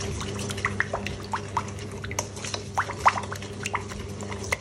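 Wooden spoon stirring a thin liquid chili dressing in a stainless steel bowl: a scatter of quick wet clicks and splats, over a steady low hum.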